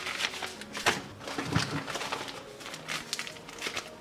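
Thin plastic ration packaging rustling and crinkling as it is handled, with irregular sharper crackles.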